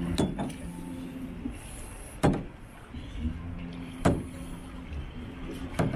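Sharp knocks about every two seconds, four in all, with a low mechanical hum running in stretches between them.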